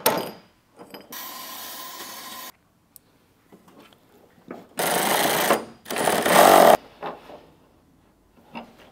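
Cordless power drill running in three bursts: a steadier, quieter run of about a second and a half, then, about five seconds in, two short, louder bursts.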